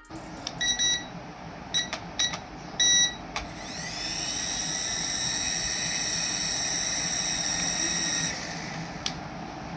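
Several short electronic beeps, then a small electric motor in a radio-control toy spins up with a rising whine. It runs steadily for about four seconds and then stops.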